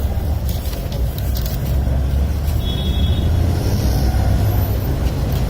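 Steady low rumble of road traffic, with a few faint clicks and a brief high beep.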